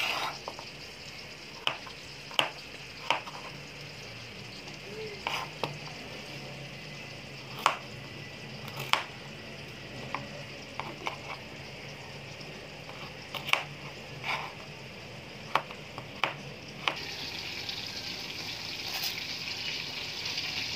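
Chef's knife slicing a carrot on a plastic cutting board: sharp, irregular knife taps, roughly one a second, over a steady hiss. About 17 seconds in the taps stop and a louder steady hiss of water boiling in a stainless steel pot takes over.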